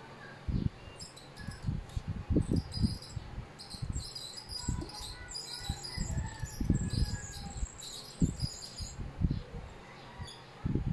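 Cassette tape playing through a portable CD/cassette boombox's speakers in a quiet passage: soft, irregular low notes, with high chirping sounds over them from about a second in until near the end.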